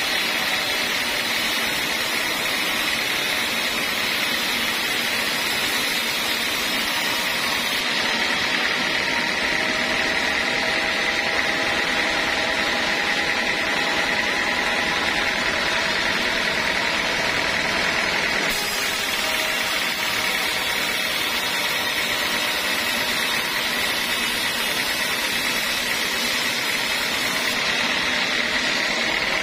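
Homemade band sawmill running, its blade cutting lengthwise through a teak board with a steady, unbroken saw-and-motor noise.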